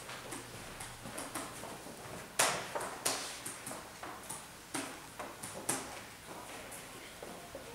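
Footsteps and scattered knocks on a wooden parquet floor as children walk on carrying cardboard placards, the loudest two thuds about two and a half and three seconds in.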